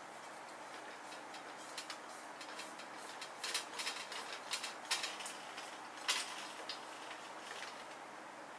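Light clicks and clinks of the Snow Peak IGT Slim table's stainless-steel frame and parts being handled, a scattered run of small taps that is busiest in the middle, over a faint steady hiss.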